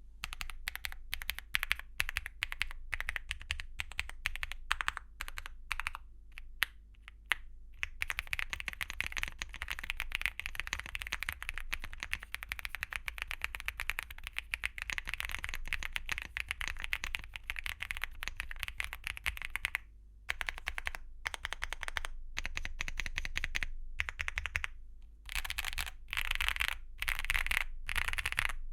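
MonsGeek M1 V5 mechanical keyboard with lubed Akko V5 Creamy Blue Pro linear switches and double-shot PBT Cherry-profile keycaps being typed on. Separate keystrokes at first, then fast continuous typing for about twelve seconds, then short bursts of keystrokes with pauses near the end.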